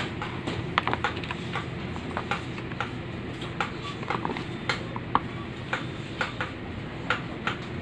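Plastic refill pouches being handled, with irregular light clicks and crinkles several times a second over a steady low background hum.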